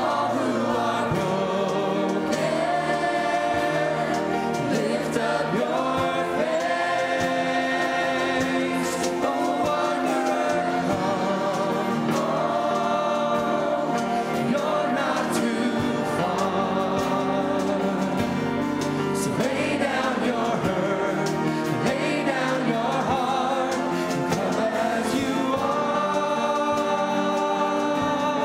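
Gospel worship music: a choir singing over instrumental accompaniment, without a break.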